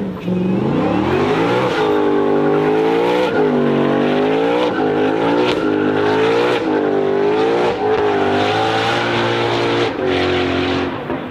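Ford Mustang GTD's supercharged 5.2-litre V8 revving up over the first two seconds, then held at high revs with the pitch swinging down and back up about once a second. It eases off just before the end.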